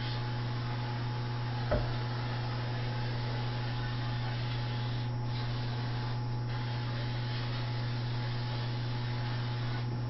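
Steady low electrical hum over a constant hiss, with a single sharp click about two seconds in.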